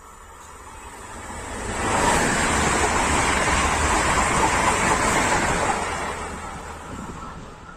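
A Renfe Class 130 Alvia train passing at speed close by. A rushing wheel-and-air noise builds over about two seconds, stays loud for about four, then fades as the train draws away.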